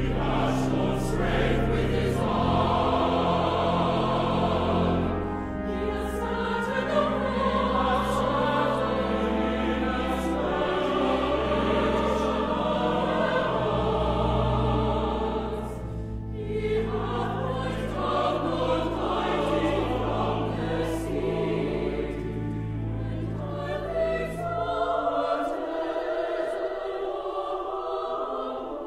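Mixed choir singing a sacred choral setting with organ accompaniment. Held low organ notes sound beneath the voices and drop out about 25 seconds in, leaving the choir.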